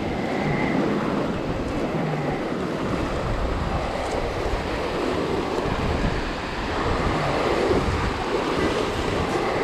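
Small waves washing in and draining back over rocks and pebbles at the water's edge, with wind buffeting the microphone.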